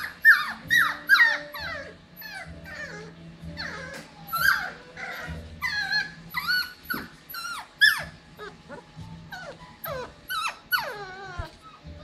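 Seven-week-old Cockapoo puppies whining and yelping: a rapid string of short, high cries that fall in pitch, about two a second and sometimes overlapping, with a longer wavering whine near the end.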